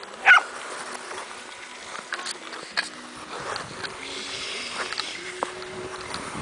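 Clear lake ice, about 5 or 6 inches thick, singing and twanging under skaters: a loud, wavering twang about a third of a second in, then scattered pings and clicks over the hiss of skate blades gliding on the ice.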